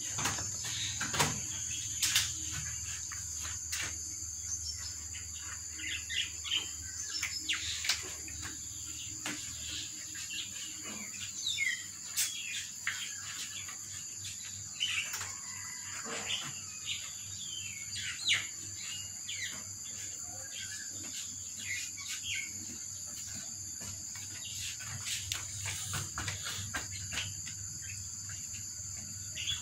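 Steady high-pitched insect drone with scattered bird chirps, and brief sharp clicks of cats crunching dry kibble.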